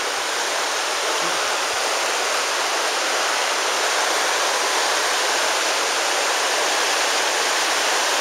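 The Virgin River's flowing water, a steady, even rush.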